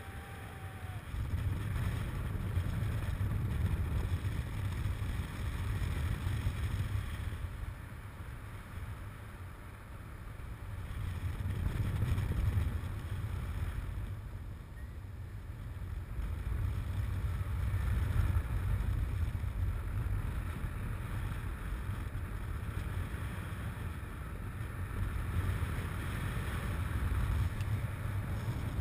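Wind buffeting the microphone of a camera on a paraglider in flight: a low rumbling rush that swells and eases every few seconds as the glider turns.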